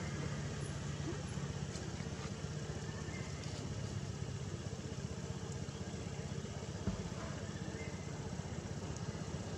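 Steady outdoor background noise with a low rumble, and a single short knock about seven seconds in.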